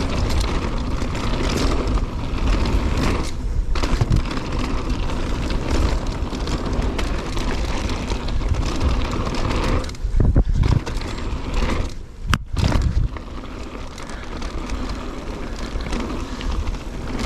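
Mountain bike riding down a dirt trail: steady wind rush on the camera microphone, with tyres rolling over the dirt and the bike rattling over bumps. There is a sharp knock about twelve seconds in.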